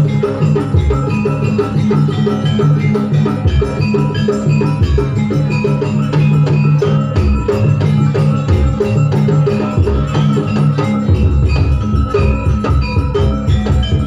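Javanese gamelan music: metal-keyed percussion playing a repeating melody over drum strokes. About eleven seconds in, the low drumming becomes steadier and denser.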